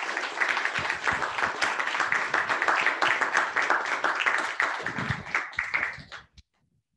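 Audience applauding, many hands clapping at once, dying away about six seconds in.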